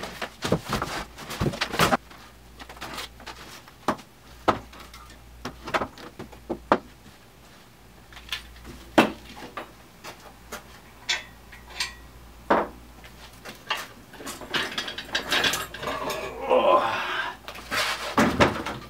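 Scattered clicks and knocks of small parts and tools being handled on a workbench, with a stretch of rustling and handling noise near the end.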